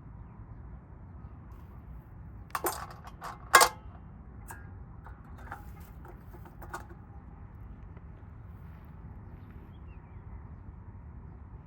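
A short clatter of sharp metallic clinks and knocks, the loudest about three and a half seconds in, followed by a few fainter single clinks. Under it runs a steady low hum.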